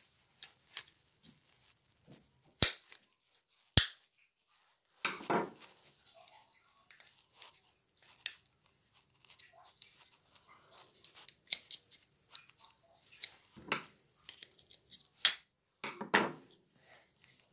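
Sharp plastic clicks and snaps of a Mini key fob's casing being pried open with a small screwdriver, with handling rustles and scrapes between. The two sharpest clicks come close together a few seconds in, and more follow at uneven intervals.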